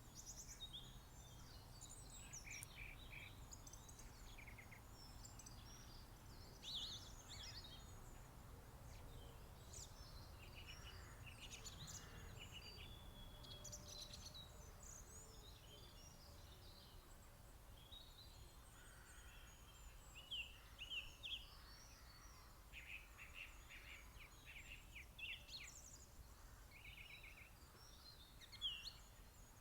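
Faint mixed spring birdsong from several small birds, with many overlapping chirps, trills and whistled phrases, over a low steady background rumble.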